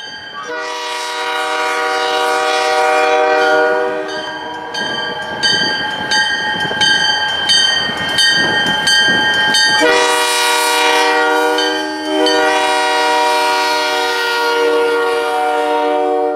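Canadian National diesel freight locomotive's air horn sounding three long chord blasts. Between the first and second blasts comes the rumble of the passing train, with a bell ringing about twice a second.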